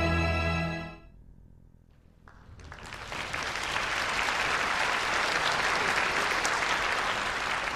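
Theme music ends about a second in; after a brief hush, a concert-hall audience's applause swells up and carries on steadily.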